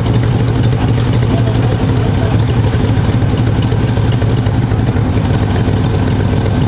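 Off-road race truck's engine idling steadily, low and even, with no revving.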